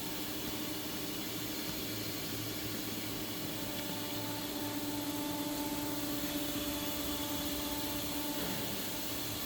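Steady machinery hum over a constant hiss, with a tone that strengthens from about three and a half seconds in to about eight and a half seconds in.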